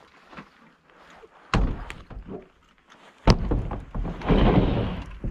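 Heavy thunks on a pickup truck's bed as a paramotor is hoisted and loaded into it: two loud knocks, about a second and a half in and just after three seconds, then a rough scraping shuffle.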